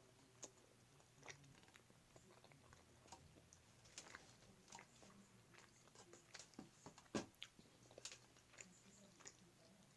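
Quiet, close-up chewing of a chili-and-ketchup hot dog in a bun: soft wet mouth clicks and smacks scattered throughout, with a louder click about seven seconds in.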